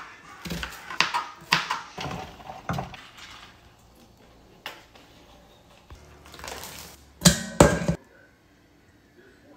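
A kitchen knife chopping through an onion onto a plastic cutting board, about five sharp knocks in the first three seconds. Later come two louder knocks in quick succession, then it goes quiet.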